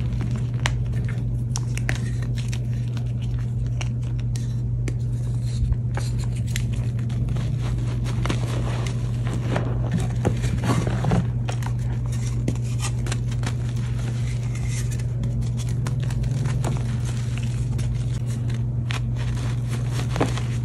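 Hands crushing and crumbling EasyGrip reformed gym chalk, the powder and hard flakes giving a dense crunchy crackle and scrape with many small sharp snaps. A steady low hum runs underneath throughout.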